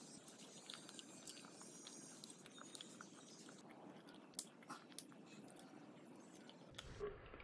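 Faint biting and chewing of a fish-shaped wafer ice-cream sandwich, with a few soft crunchy clicks of the wafer, the sharpest two about four and five seconds in, over a low steady hiss.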